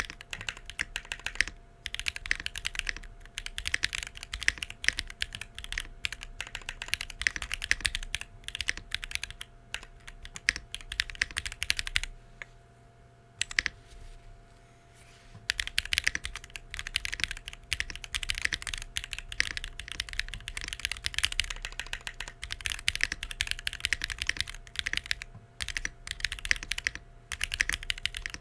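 Typing on a Womier RD75 mechanical keyboard fitted with Weikav Rouge Axis switches, a carbon fibre plate, half gaskets, plate foam only and Weikav keycaps: a quick, steady run of keystrokes that pauses for about three seconds about halfway through.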